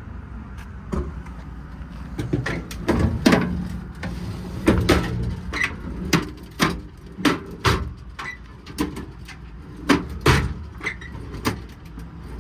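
Metal drawers and doors of a service body's tool compartment being pulled open and pushed shut: a run of clacks, knocks and rattles over a steady low rumble.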